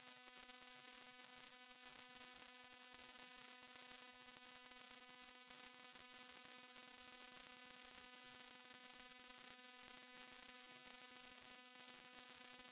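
Near silence: a faint, steady electrical hum with hiss, the recording's noise floor.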